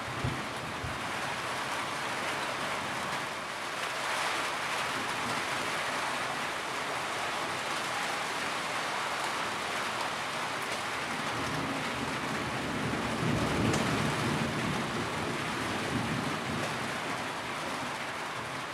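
Steady heavy rain, with a low roll of thunder that builds about two-thirds of the way through and then fades.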